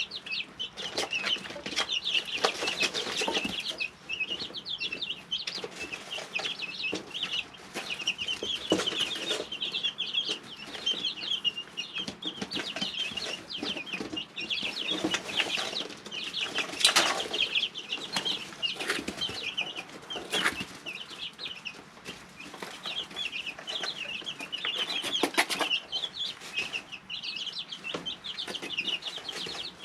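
Brooder of three-week-old chicks peeping continuously in many quick, high overlapping peeps. Brief louder noisy sounds come now and then, the loudest about halfway through.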